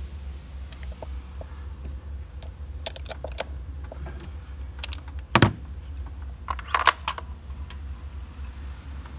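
Metal clinks and taps of a spark plug socket and extension as a new spark plug is lowered into the plug hole and threaded in by hand, with sharper clinks about five and seven seconds in, over a steady low hum.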